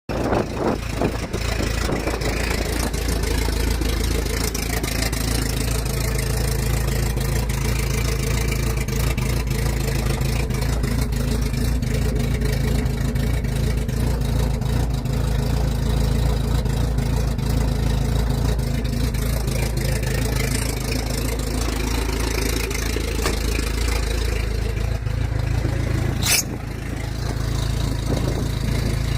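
Nissan KA24DE 2.4-litre inline-four with an open downpipe running steadily at idle, knocking from the bottom end: a rod knock. Near the end there is one sharp click, and the engine is a little quieter after it.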